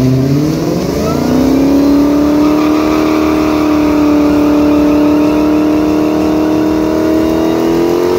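Dodge Challenger Hellcat's supercharged V8 doing a burnout: the engine revs climb over the first second or so, then are held steady at high revs while the rear tyres spin and smoke, creeping slightly higher near the end.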